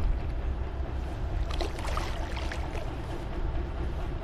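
A hooked big carp splashing at the water's surface as it is hand-lined to the bank, with a few short sharp splashes between about one and a half and two and a half seconds in, over a steady low rumble.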